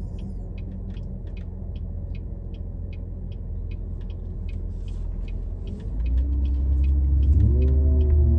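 Inside a car: the engine and road rumble, with the turn-signal relay ticking about three times a second. About six seconds in, the rumble grows louder and the engine note rises as the car speeds up.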